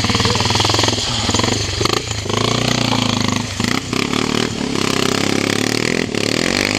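Yamaha TW200 motorcycle's single-cylinder four-stroke engine running close by, rising and falling in pitch as the throttle is worked.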